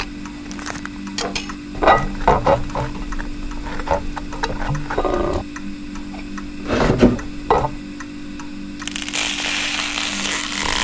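Irregular mechanical clicks and knocks with a few louder clatters, over a steady low hum; a hiss comes in near the end.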